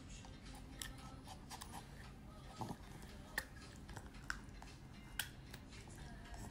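Pomeranian puppy gnawing a wooden paddle hairbrush: faint, irregular clicks and crunches of its teeth on the wooden pins.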